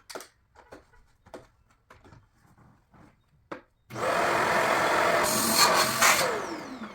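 Plastic parts of a Shark vacuum clicking and knocking as they are handled, then about four seconds in the vacuum's motor starts abruptly, runs loudly for about two seconds and winds down with a falling whine.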